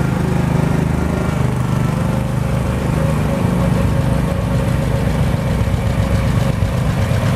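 John Deere 50 tractor's two-cylinder engine running steadily at parade speed, its exhaust beating in an even, fast rhythm.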